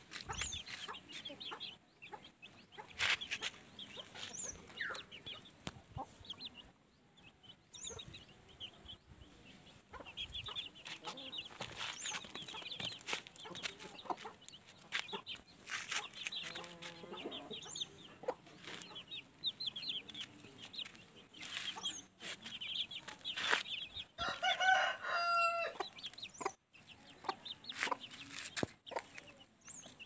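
Young chickens peeping and clucking while they feed, with scattered sharp clicks. About 24 seconds in, a rooster crows once, the loudest sound here.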